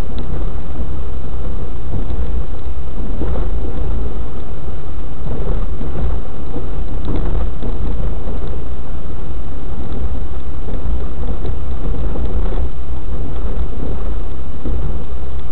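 Loud, steady rumble of a moving car heard from inside, road and engine noise picked up by a dashcam microphone, with a few faint short knocks from bumps along the way.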